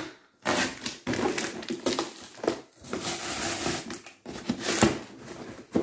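Cardboard shipping box being ripped open by hand: a string of separate tearing and crinkling rips with short pauses between them, the sharpest and loudest near the end.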